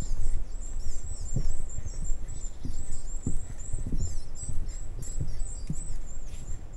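A flock of small songbirds giving many thin, very high-pitched chirping calls, one after another throughout, over irregular low thuds of footsteps.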